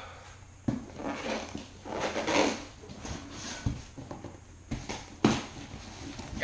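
Cardboard shipping box being cut open with a knife and handled: irregular scuffing and rustling of cardboard and packing tape, with a few sharp knocks as the box is tipped and turned over.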